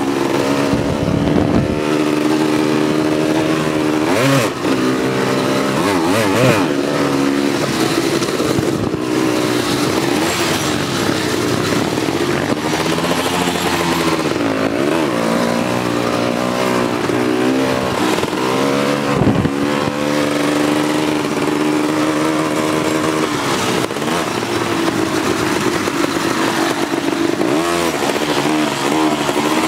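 Four-wheeler (ATV) engine running under load across rough ground, its pitch repeatedly rising and falling as the throttle is worked, with a few brief knocks along the way.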